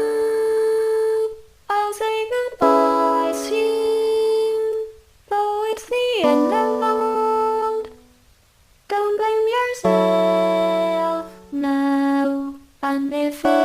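Music: a melody of long held notes, some sliding in pitch, broken by short pauses.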